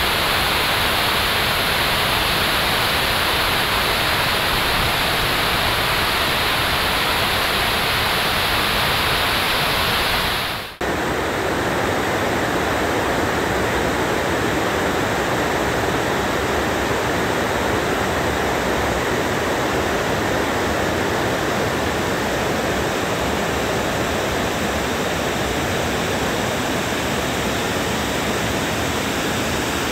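Steady rush of water pouring over a dam spillway. About ten seconds in it cuts to a different steady rush of fast-flowing floodwater in a swollen river.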